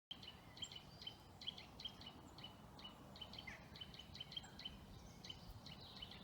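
Faint birdsong: many short, quick chirps from small birds, several a second, over a low steady rumble.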